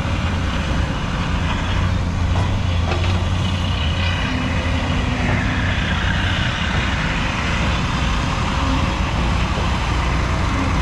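Heavy diesel dump truck's engine running with a loud exhaust, a steady low rumble. Over the second half a higher whine falls slowly in pitch.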